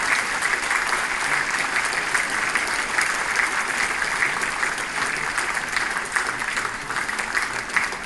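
A large audience applauding steadily, with a dense patter of many hands clapping that eases slightly near the end.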